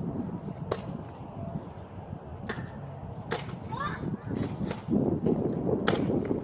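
Nerf Rival foam-ball blasters firing: four sharp snaps a second or more apart, over rough outdoor noise that grows louder in the second half.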